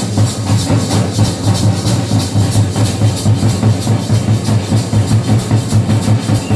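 Large barrel drums beaten by a group of boy drummers, with sticks and hands, in a fast, steady rhythm of about two to three strokes a second.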